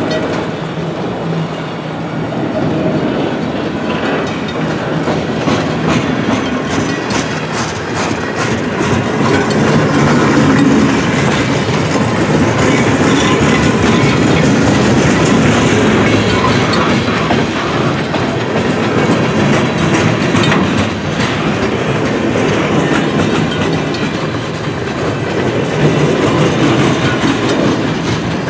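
Freight cars of a long mixed freight train (autoracks, boxcars, centerbeam flatcars) rolling past at speed: a steady rumble of steel wheels on rail, with rhythmic clickety-clack.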